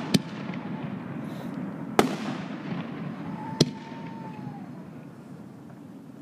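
Aerial firework shells bursting overhead: three sharp bangs, the first right at the start and the others about two seconds and then a second and a half apart.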